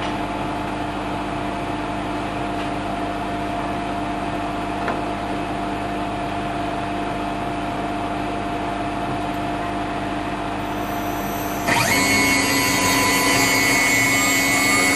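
Steady machine hum with a couple of low steady tones; about twelve seconds in, a high whine sweeps up fast and holds, louder: the CNC router's spindle spinning up to cutting speed.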